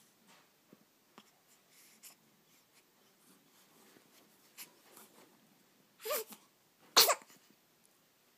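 A one-week-old baby sneezing: a short breathy catch about six seconds in, then a sharp, louder sneeze a second later.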